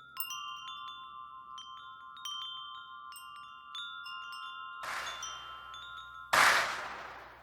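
Wind chimes ringing, several bell-like tones struck one after another and left to ring on. About five seconds in a rush of noise builds, then comes a loud whoosh that fades away.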